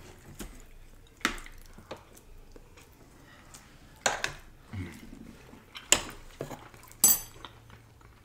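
Metal forks clinking and scraping against plates, with a few sharp clinks, about four louder ones spread through, the last with a short bright ring.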